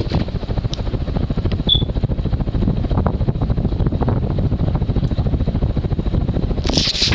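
Emerson Roundnose ceiling fan running on high speed, a steady low rumble from its electrically-reversible shaded-pole motor and 52-inch blades. The shaft is worn, with some lateral play that adds extra motor noise.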